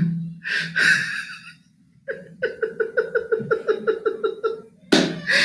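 A man laughing: breathy, wheezy bursts of laughter, then after a short lull a long run of rapid high-pitched giggles, about six a second. A loud burst of laughter comes near the end.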